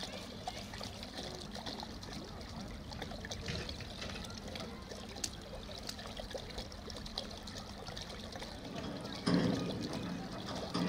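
Water trickling and pouring steadily, with faint voices in the background and a sudden louder burst of sound near the end.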